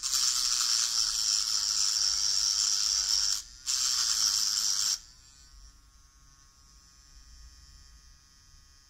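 Hypograph tattoo machine running as a small electric rotary file, its burr grinding scratch marks off an aluminium edge. A loud high-pitched grinding hiss lasts about five seconds, with a brief break in the middle. Then the burr comes off the metal and the machine runs on with a quiet steady hum.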